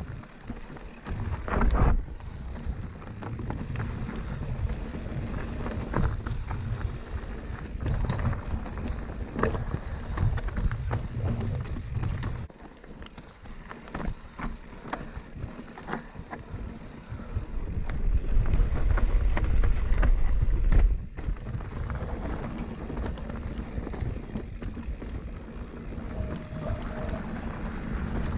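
Mountain bike riding fast down dirt singletrack: tyres running over dirt and rock with the bike frame and parts rattling and clicking, and wind buffeting the microphone, heaviest about two-thirds of the way through.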